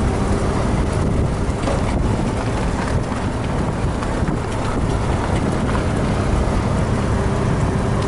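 Steady wind and road noise from a Jeep driving along a paved road.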